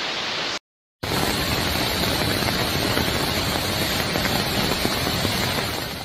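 Rushing floodwater: a dense, steady rush of turbulent water, broken by a split-second of silence about half a second in, then continuing and easing slightly near the end.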